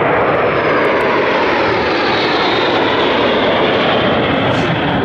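Formation of aircraft flying past, with loud, steady engine noise and a high whine that falls slowly in pitch.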